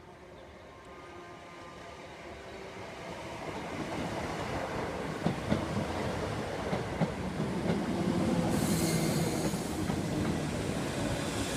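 British Rail Class 317 electric multiple unit approaching and running past, growing steadily louder, with its wheels clicking over rail joints from about halfway through and a brief high hiss near the end.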